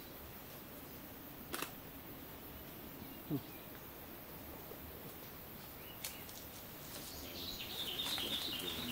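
Quiet rainforest background with a few sharp clicks and one short low sound falling in pitch about a third of the way in. Near the end comes a louder rustling of leaves and branches as an indri moves off through the trees.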